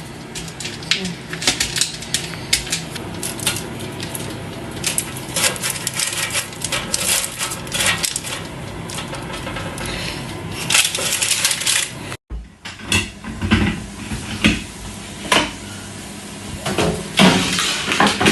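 Metal cutlery and dishes clinking: many sharp, irregular clinks over a steady kitchen background. About twelve seconds in, the sound cuts out to silence for a moment.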